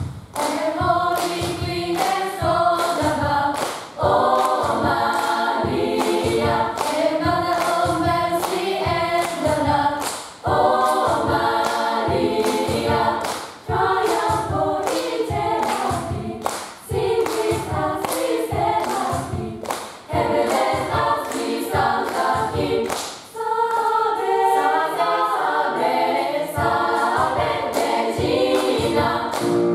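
Mixed gospel choir singing an upbeat number in several-part harmony, with steady hand claps keeping the beat.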